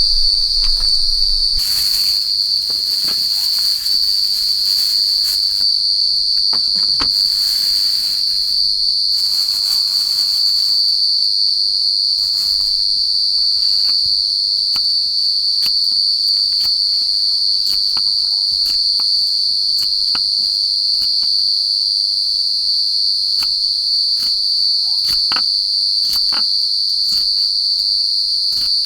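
Forest insects singing a continuous, high, steady trill. Scattered clicks and a few short bursts of hiss sound over it.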